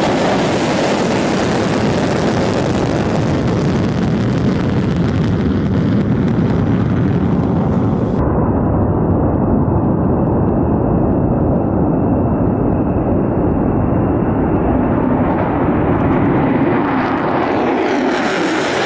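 F-35A fighter's single jet engine in afterburner during a takeoff roll: loud, steady jet noise. About eight seconds in it cuts abruptly to a duller, more distant jet rumble with the high end gone, which grows brighter again near the end.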